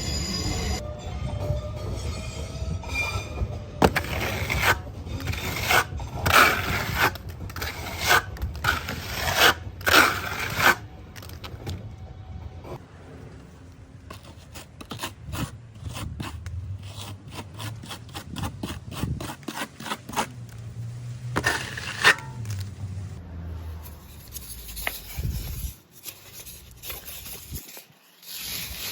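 A hand tool scraping over a wall surface in repeated short strokes, loudest and most frequent in the first third, with another loud stroke a little past two-thirds of the way through.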